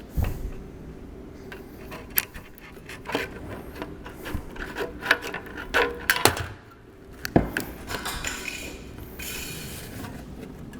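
Metal roofing parts being handled: scattered knocks, clicks and scraping, with a heavier thump at the start and another about seven seconds in, then a hissing rub for about a second near the end.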